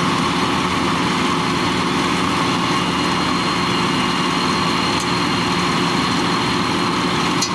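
Chao Phayu combine harvester's engine running steadily, with a thin high whine over it.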